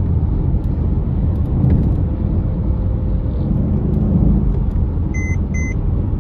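Car driving, with a steady low rumble of engine and road noise inside the cabin. Near the end come two short electronic beeps in quick succession.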